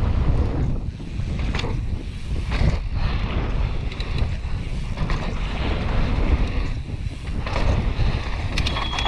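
Wind buffeting a helmet-mounted action camera's microphone as a mountain bike rides fast down a dirt jump line, with tyre rumble and several sharp clattering knocks from the bike. A short high squeal sounds near the end.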